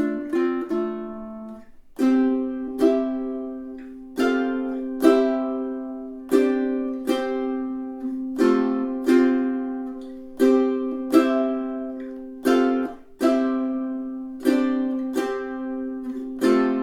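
Kala KA-6E six-string tenor ukulele played acoustically. It opens with a quick run of picked notes, then from about two seconds in plays chords strummed in pairs that are left to ring.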